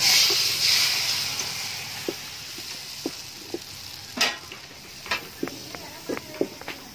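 Num banh chhev (Khmer crispy crêpe) batter ladled into a hot wok: a loud sizzling hiss starts at once and fades over about two seconds, then the thin crêpe fries with scattered crackling pops.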